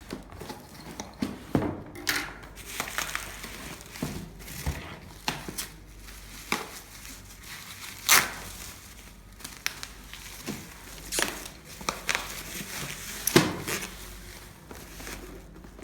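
Crinkling and rustling from something being handled, with scattered sharp clicks and knocks, the loudest about 8 and 13 seconds in.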